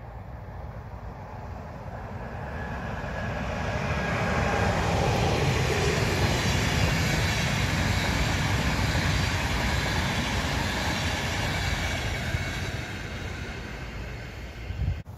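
EuroCity passenger train hauled by an ÖBB Class 1216 electric locomotive passing at speed, a steady rolling rumble of wheels on rail. It swells as the train nears, holds loud for most of its passing, then fades away.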